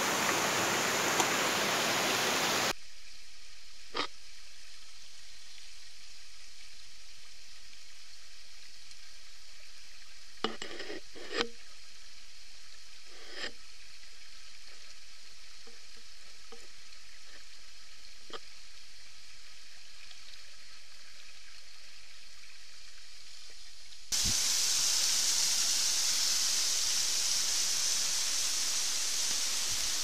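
Steady rush of falling water from a small forest waterfall, starting suddenly about 24 seconds in. Before it comes a long, much quieter stretch of faint hiss with a few light clicks, and the opening couple of seconds hold a loud stream rush that cuts off abruptly.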